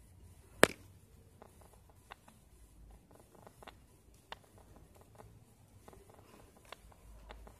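Plastic basket-weaving wire being handled, its strands pulled out from and threaded through a woven piece: scattered light clicks and ticks, with one sharp click about half a second in.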